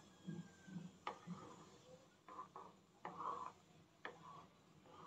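Faint taps and scrapes of a white spatula against a metal kadhai as millet is stirred into boiling water, a few sharp clicks among softer rubbing.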